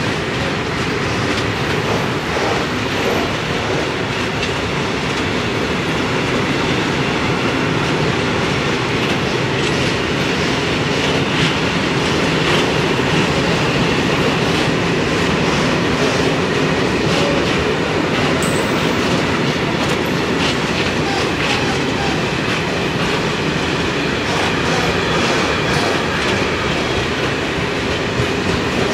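A freight train of four-axle Eas open wagons loaded with coke rolling past at steady speed, with a continuous rumble and rhythmic clickety-clack of the wheels over rail joints.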